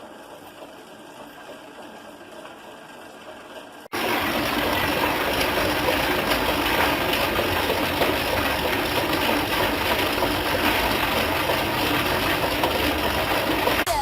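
Stationary exercise bike being pedalled: a loud, steady, dense whirring hiss that starts suddenly about four seconds in, after quiet room tone. It is used as a sound effect for rain.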